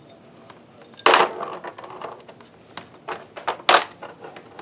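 Metal parts and tools clanking against each other and the bench while a milling-machine transmission is taken apart: one loud clank about a second in with a short ring, then a quick cluster of three or four smaller knocks near the end.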